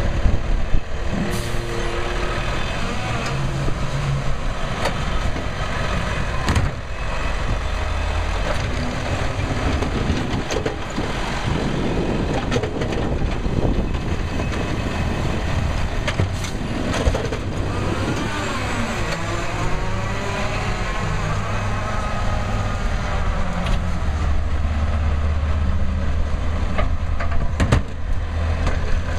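Automated side-loading garbage truck idling at the curb while its hydraulic arm grabs a recycling cart, lifts and dumps it, then sets it back down. The hydraulics whine in rising and falling glides about two-thirds of the way through, over the steady diesel rumble, with a few sharp clanks from the arm and cart.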